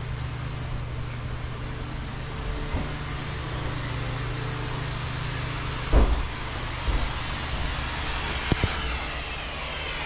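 A steady machine drone with a low hum, and a single loud thump about six seconds in.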